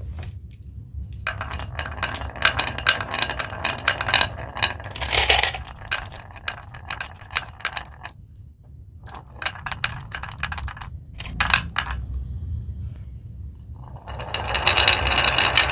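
Marbles clicking and clattering down a marble run track in bursts of rapid small impacts. About fourteen seconds in, it turns into a dense, continuous rolling rattle of many marbles.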